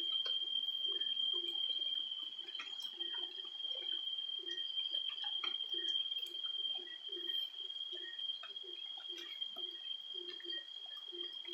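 Frogs calling in short, low croaks, about two a second, over a steady high-pitched whine.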